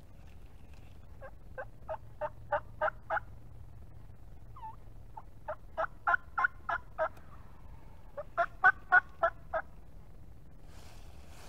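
Turkey yelping: three runs of seven or eight evenly spaced yelps, about three a second, each run growing louder. The third run, near the end, is the loudest.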